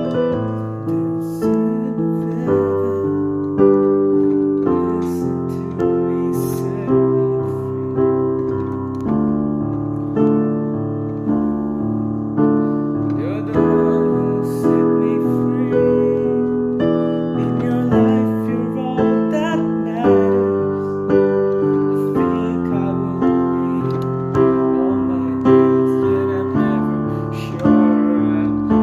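Solo piano playing a slow ballad, struck chords and melody notes about once a second, each left to ring and fade.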